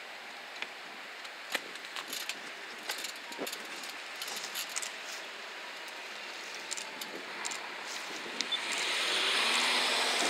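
Scattered sharp metallic clicks and knocks over the steady sound of a stationary NS DM '90 diesel multiple unit; about eight seconds in, a louder rushing engine sound builds and holds.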